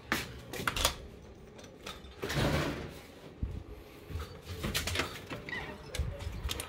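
Doors being opened: the knob and latch of an inside house door click as it is turned and pulled open, with a short rush of the door swinging, then the latch of a glass storm door clicks and it is pushed open.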